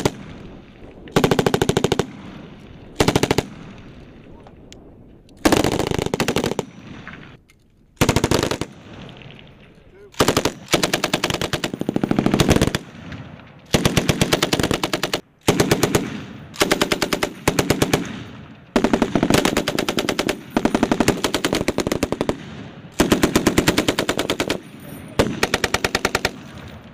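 Belt-fed machine gun firing many short bursts of rapid shots, one after another with brief pauses between them.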